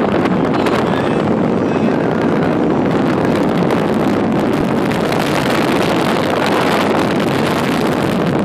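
A motorboat running steadily under way, with wind buffeting the microphone over the engine and water noise.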